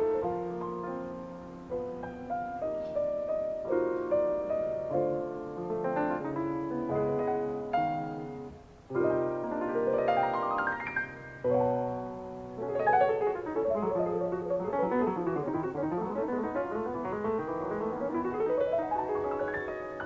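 Two acoustic grand pianos playing jazz in duet, a live concert heard from a cassette taping of an FM broadcast. Busy interlocking lines give way to fast runs sweeping up the keyboard about halfway through, then a long run that falls and climbs again near the end.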